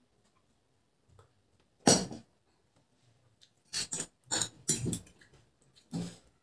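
A drinking glass set down on a table about two seconds in, then a metal fork clinking and scraping on a ceramic plate in several sharp strokes while noodles are scooped up.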